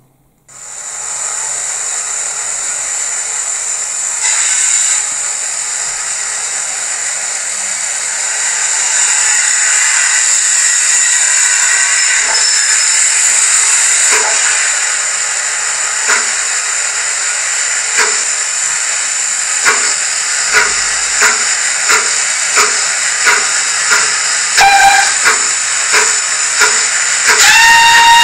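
Zimo sound decoder in a Bachmann 9F model locomotive playing a steam locomotive sound through a small Ice Cube speaker. A steady hiss of steam comes first, then exhaust chuffs start slowly past halfway and quicken. Near the end there is a short whistle toot, followed by a longer whistle.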